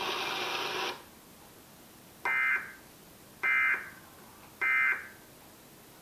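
Emergency Alert System end-of-message signal: three short, harsh digital data bursts about a second apart, the code that closes an EAS alert. Before them, about a second of steady hiss cuts off.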